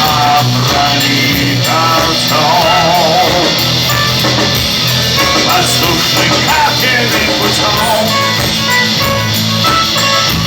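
Live rock band playing loudly, with electric guitars, bass and drum kit; a wavering held note stands out about two to three seconds in.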